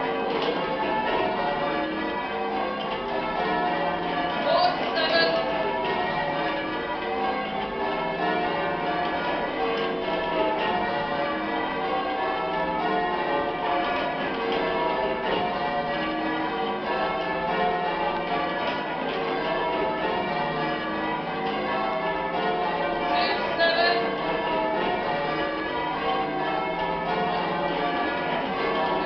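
Church bells being change-rung by hand, heard from the ringing room below: a continuous run of overlapping bell strokes in a steady rhythm. Two short louder sounds stand out, about five seconds in and again about twenty-three seconds in.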